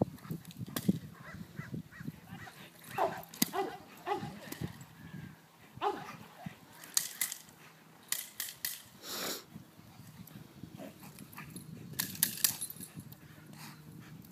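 A dog doing leashed bite work on a decoy in a padded bite suit: a few short barks and grunts as it grips and tugs. Scuffling, with sharp knocks and rustles in between.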